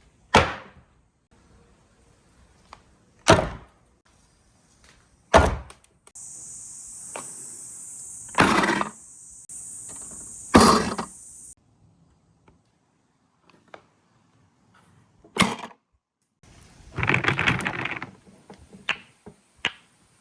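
Marbles running down a marble run with handmade slopes: a sharp clack every couple of seconds as marbles knock against the track, a steady high whir for about five seconds in the middle, and a short burst of rattling near the end.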